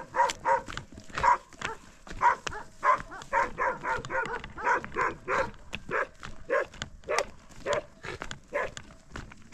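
A dog barking over and over in short, loud barks, about two a second in an uneven rhythm.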